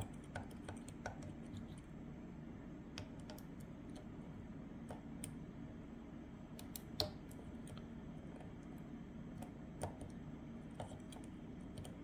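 Faint, irregular small metallic clicks and ticks of a pick working the pin stack inside a Lockwood Twin padlock's brass cylinder under tension, the sharpest tick about seven seconds in, over a low steady hum.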